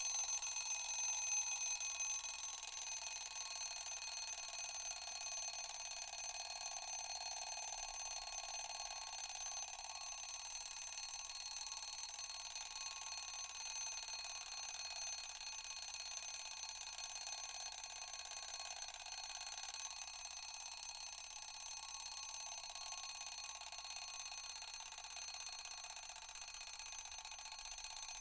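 Mechanical alarm clock bell ringing continuously, a high metallic ringing with no pauses.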